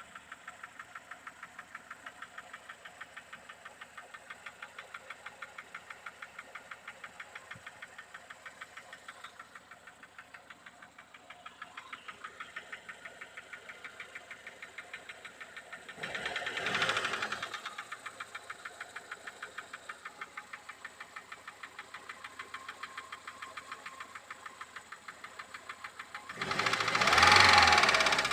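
VAZ-2101 (Lada/Zhiguli) four-cylinder overhead-cam engine running with a steady, rapid, even knock from under the valve cover, a knock that valve adjustment has not cured. The engine gets louder twice: briefly past the middle and again near the end.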